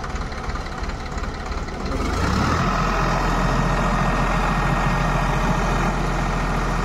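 Sonalika DI 740 tractor's diesel engine running under load as the tractor, without cage wheels, works in deep paddy-field mud. About two seconds in the engine note steps up and then holds steady.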